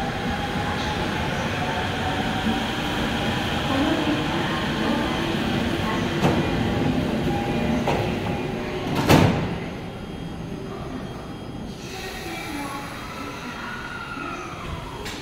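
E231-series commuter train standing at the platform with its equipment running steadily, a couple of sharp clicks, then its sliding doors shutting with a loud thump about nine seconds in. The running sound is quieter after the doors close.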